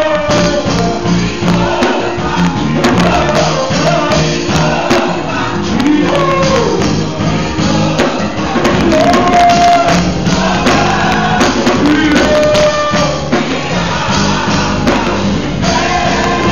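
Live gospel music: singers with a band, sung lines gliding and holding over a steady bass and a regular percussion beat.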